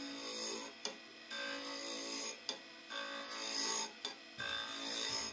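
A steel chisel cutting a pale wood workpiece spinning on a wood lathe, in repeated scraping passes of about a second each with short gaps and sharp clicks between them, over a steady low hum.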